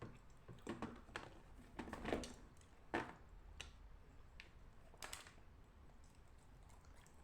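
Dried clay being split into plates with a knife: a series of faint, short cracks and clicks, irregularly spaced through the first five seconds. The clay breaks cleanly without squeaking.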